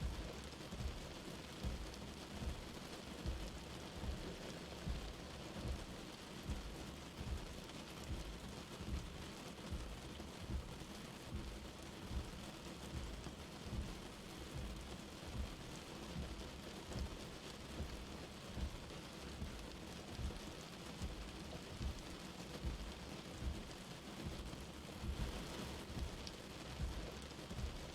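Light rain falling steadily, with soft low thumps recurring about once a second.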